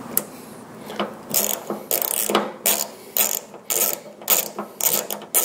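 Ratchet wrench clicking in short runs, about two strokes a second, as a 10 mm bolt is driven back in to fasten a hood-strut bracket.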